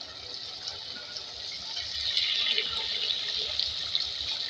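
Spinach and potatoes sizzling and bubbling in a pot over the heat, a steady crackling hiss that grows louder about two seconds in.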